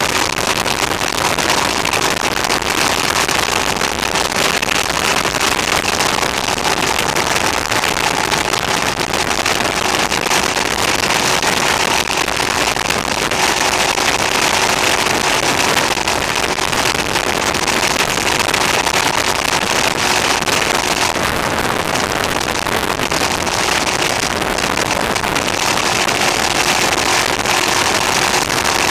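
Motorcycle running at a steady cruise, its engine note mixed with wind rushing over the on-board camera's microphone. The recording level is set too high, so the sound is harsh and overdriven.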